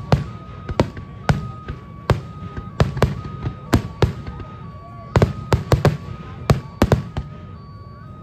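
Aerial firework shells bursting in a rapid, irregular string of sharp bangs, most tightly packed about five to seven seconds in and thinning out near the end.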